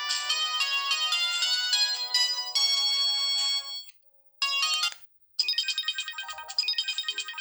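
Samsung GT-E1080F phone ringtones played one after another: one melody ends almost four seconds in, a short fragment plays after a brief silence, and a new tune of fast repeated notes starts about five and a half seconds in.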